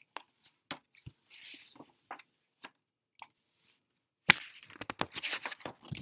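Pages of a picture book being turned and handled: scattered light clicks and soft paper swishes, then a louder stretch of paper rustling and crinkling that starts with a sharp snap about four seconds in.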